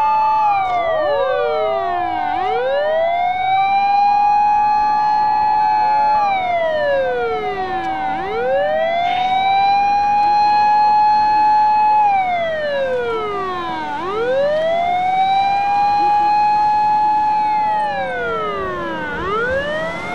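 Fire engine sirens wailing: the pitch holds, slides down and climbs back up, in a slow cycle repeating about every six seconds.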